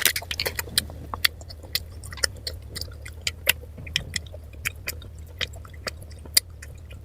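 Close-miked chewing of a red date stuffed with camel-milk candy and a cashew nut, with irregular wet mouth clicks. A steady low hum runs underneath.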